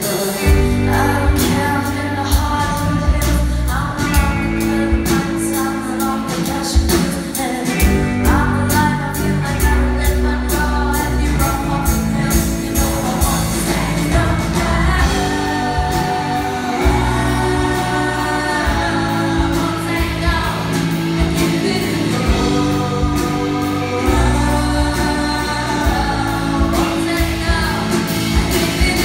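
Live rock band playing a song, a woman singing lead over bass, guitars and a steady drum beat.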